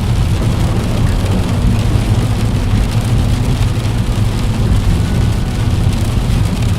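Steady heavy rain beating on a window pane, a dense even patter over a constant deep low rumble.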